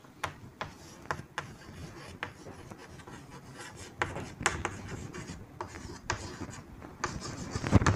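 Chalk writing on a green chalkboard: irregular taps and short scrapes as the letters are stroked out.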